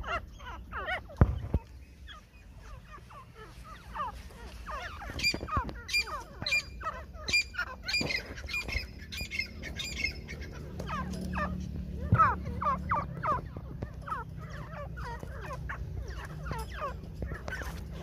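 Several caged teetar (francolins) calling: many short, downward-sliding chirps repeated throughout. A low steady hum runs underneath from about eleven seconds in.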